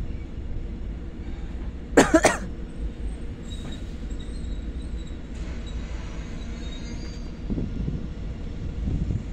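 Diesel locomotive hauling coaches on its approach, a steady low engine rumble that grows louder near the end. About two seconds in comes a brief loud burst close to the microphone.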